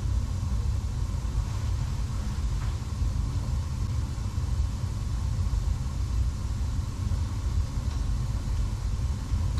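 Gas burner of a Slant/Fin Galaxy steam boiler firing, a steady low rumble with a faint constant hum above it.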